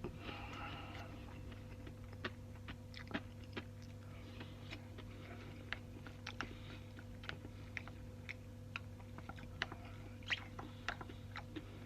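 A person chewing food close to the microphone, with irregular small wet clicks and smacks from the mouth, over a steady low hum.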